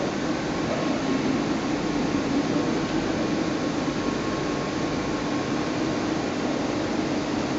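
Steady machinery hum in a machine shop: a constant low drone with a faint, thin higher tone above it, no strikes or breaks.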